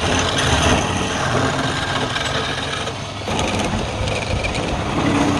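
Wood lathe running, with a tool cutting the spinning wood and giving a steady hiss over the motor hum; the cutting noise drops away for a moment about three seconds in, then resumes.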